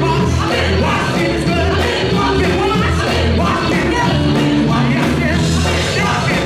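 Live gospel music: a female lead singer and backing vocalists singing over a band with electric guitar and keyboard, a strong bass line and a steady beat.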